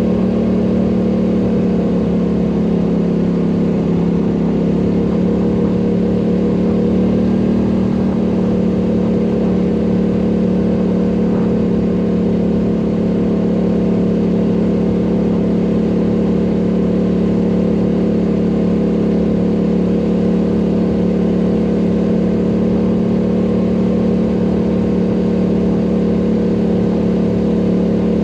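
ATV engine running steadily while riding; its pitch shifts a little several seconds in, then holds even.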